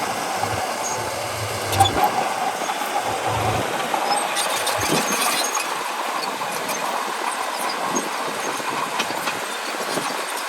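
Bulldozer at work: a steady mechanical din with light clatter, typical of steel tracks clanking as the machine moves.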